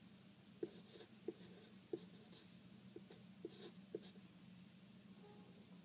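A pen writing on paper, faint: short scratchy strokes and about six small taps as numbers and minus signs are jotted down.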